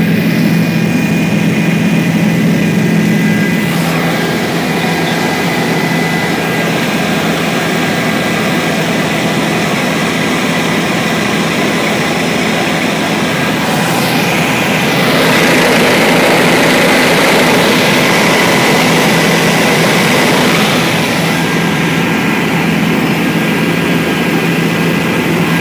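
Steady engine drone and rushing air inside the cabin of a small aircraft in flight: a constant low hum with a few thin, steady high tones over a wash of noise. The noise swells louder for several seconds about midway.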